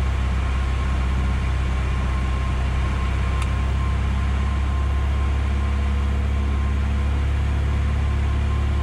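Piper Arrow's single piston engine and propeller droning steadily inside the cockpit during descent, a constant low hum with no change in pitch.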